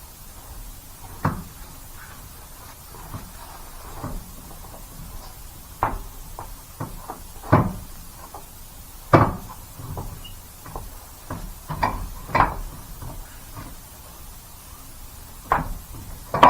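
Irregular knocks and clunks, about a dozen spread unevenly, as a large truck tire and wheel is worked onto the hub studs.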